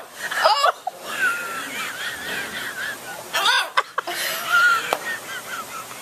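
Large green macaw giving two loud, harsh squawks about three seconds apart, with a woman laughing between them.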